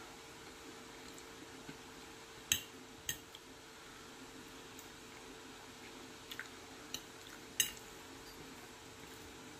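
A person quietly eating pasta salad with a fork: about half a dozen sharp, wet clicks of fork and mouth, the loudest about two and a half seconds in and near the end, over a steady low hum.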